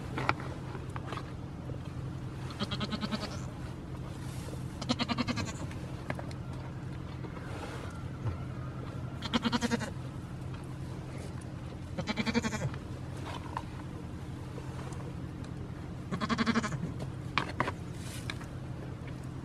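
Goats bleating: about five short bleats, a few seconds apart, over a steady low hum, with a few sharp clicks near the start and near the end.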